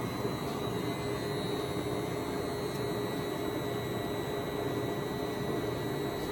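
Large Poreba TPK110 engine lathe running steadily under power, giving an even mechanical hum with a steady whine.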